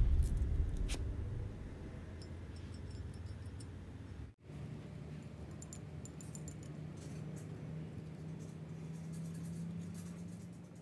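Background music fading out at the start, then faint metallic clicks and clinks of small parts being handled and fitted at a marine gearbox's coupling drive gear, over a steady low hum. The sound drops out for an instant about four seconds in.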